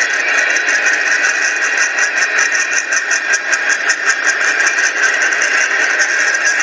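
Freight cars of a passing freight train rolling by: steady rail noise with a rapid, uneven run of wheel clicks. The sound is thin, with no deep bass, as it comes from a trackside webcam feed played back through a speaker.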